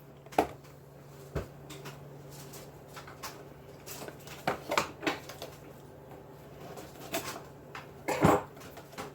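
A person eating a chocolate bar: scattered small clicks, taps and mouth noises over a low steady hum, with a brief louder sound about eight seconds in.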